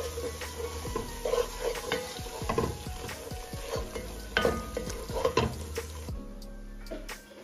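Wooden spoon stirring and scraping onions, tomato paste and spices frying in a granite-coated pot, with an irregular run of knocks and scrapes over a sizzle.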